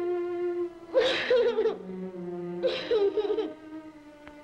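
A little girl's laughter in repeated bursts, about every second and a half to two seconds, each breathy at the start and then wavering in pitch, over sustained low music.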